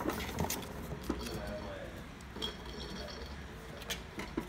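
Light scattered taps, clicks and scratches of a kitten's paws on a cardboard box, with small plastic toy balls knocking about inside it.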